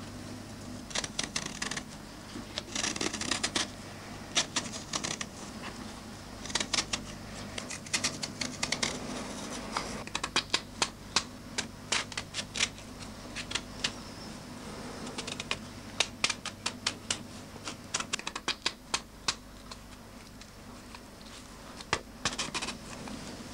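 Knife scraping and cutting into a raw beetroot: irregular runs of short, sharp scratches and clicks, several a second, over a steady low hum.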